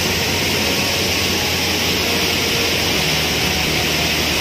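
Waterfall pouring down a rock face into a pool: a loud, steady rush of falling water.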